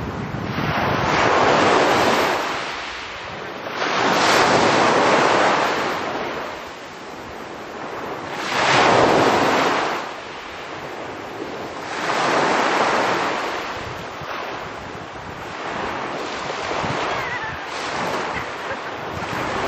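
Small waves breaking and washing up a pebble beach, each a rush of surf that swells and fades about every three to four seconds, the surges growing weaker near the end.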